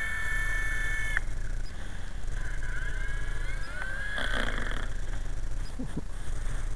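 Small RC helicopter's motor whining, rising in pitch as it spins up and cutting off about a second in; it spins up again, and a brief clatter follows around four seconds in as the helicopter sets down on the target board. A steady low rumble runs underneath.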